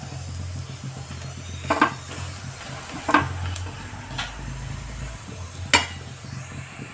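Onion paratha sizzling on a hot tawa, with a utensil knocking sharply against the tawa three times.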